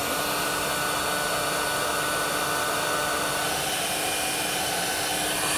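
Handheld electric heat gun running steadily, its fan blowing hot air onto a heat-shrink butt connector to shrink it. A steady rushing blow with a constant motor hum under it.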